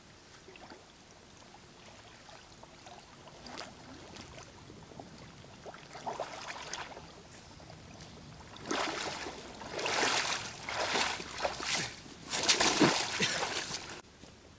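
Muddy water sloshing and splashing, faint at first, then several louder surges of splashing in the second half.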